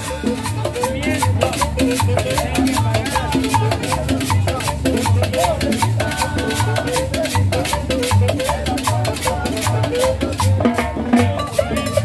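Live Latin dance music from a small acoustic street band of upright bass, saxophone, trumpet and drum, with a steady bass beat about twice a second under busy percussion.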